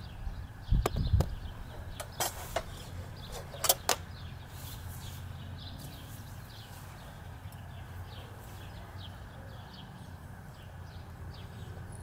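Metal clanks and clinks as a bucket furnace's steel lid is lifted off with a hook and set down on a brick rim, a handful of sharp knocks within the first four seconds. Under them runs a steady low rumble, and small birds chirp throughout.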